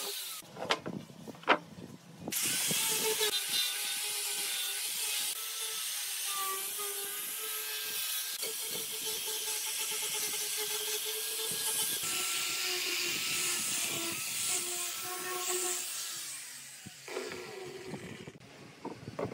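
Angle grinder with a sanding disc running against a pine board: a steady motor whine with a hissing, scouring noise as the disc works the wood. Two sharp knocks come about a second in, and the grinder stops near the end, leaving a few lighter knocks.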